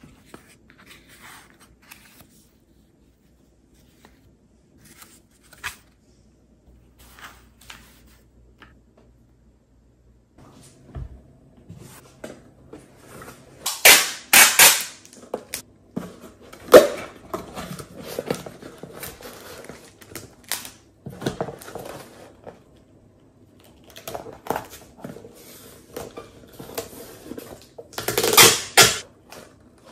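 Packing tape being pulled off the roll in loud, crackling rips and pressed onto a cardboard box, with rustling and knocking of the box between strips. The loudest rips come about halfway through and again near the end. The first part holds only faint clicks of cardboard pieces being handled.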